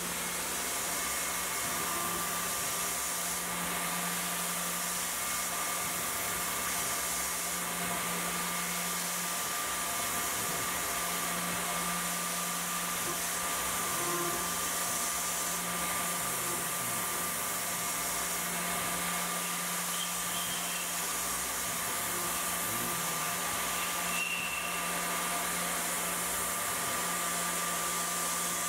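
CNC mill spindle running a small end mill through an aluminum part, with a steady hum and a constant hiss of coolant spray.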